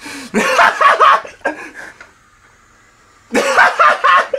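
A man laughing hard in two loud bouts of wheezing, bark-like laughter, with a quiet gap of over a second between them.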